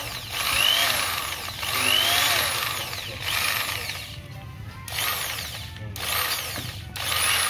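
Cheap Chinese 550 W two-speed electric drill run in short repeated bursts, about one a second. Its motor whine rises and falls with each squeeze and release of the trigger.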